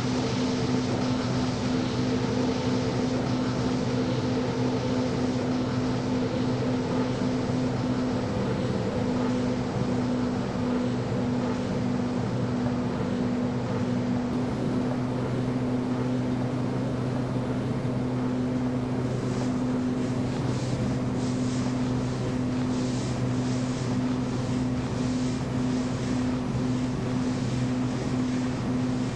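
A steady low drone of several held tones over a noisy hiss, unchanged throughout. From about two-thirds of the way in, a run of short scratchy strokes rides on top.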